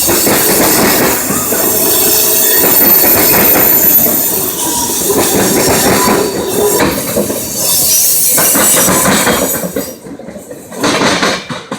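CSX freight train passing close by, its wheels rumbling and clattering over the rails with some wheel squeal. The noise drops off sharply about ten seconds in as the train goes by.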